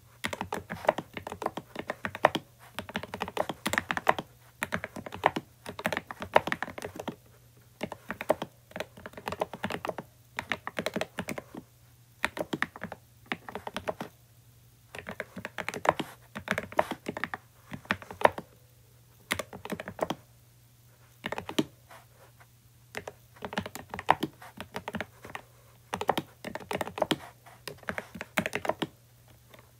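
Mechanical keyboard with lubed switches and added foam being typed on, in runs of fast keystrokes broken by short pauses.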